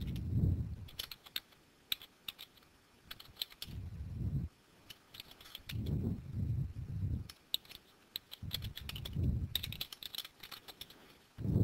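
Typing on a computer keyboard: irregular runs of key clicks. Dull low bumps come now and then between the runs.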